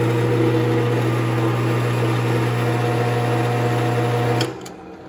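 Drill press motor running with a steady hum, its bit lowered into a wood block. Just over four seconds in the push-button stop is pressed and the hum cuts off sharply, leaving a few faint clicks as the machine winds down.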